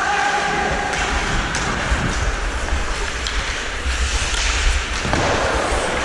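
Ice hockey play at close range: skates scraping the ice and a few sharp knocks of stick and puck, over a steady low rumble of wind and movement on the helmet camera's microphone.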